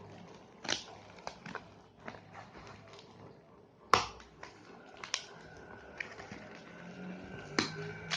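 Packaging being handled and pulled open by hand: scattered crinkles and sharp clicks, the loudest about four seconds in.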